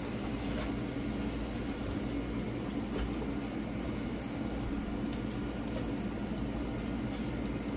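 Beef chunks simmering in their juices in a frying pan on a gas stove, a steady bubbling with a low, even hum beneath it.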